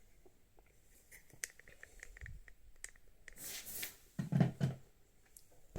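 Hands handling plastic motorcycle headlight parts: scattered small clicks and rubbing, a louder scrape about three and a half seconds in, then a couple of dull knocks.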